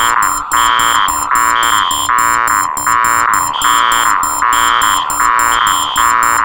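Four electronic alarms sounding together. A harsh buzzing tone pulses about once a second, a higher beep sounds in most cycles, and a rapid high chirping runs above them.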